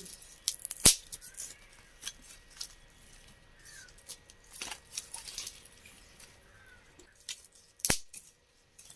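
Dry twigs and straw rustling and crackling as they are handled and pushed into the firebox of a clay chulha, with scattered small snaps and two sharp cracks, one about a second in and one near the end.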